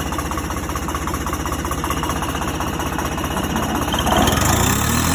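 Engine chugging steadily with a fast, even knock, revving up about four seconds in.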